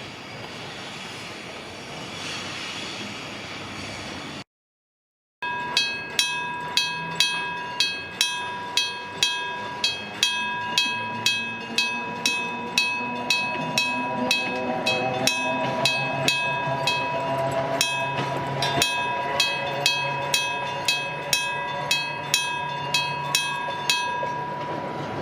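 Level-crossing electric bell ringing, its hammer striking about twice a second with a steady ringing tone: the warning that a train is approaching. It starts after a second-long dropout that follows a few seconds of steady train noise, and a low rumble builds under the bell from about halfway.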